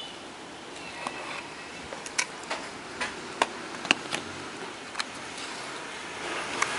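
About a dozen sharp, irregular clicks and light taps over a steady hiss: hands handling the plastic body of a wireless handheld microphone. The hiss grows louder near the end.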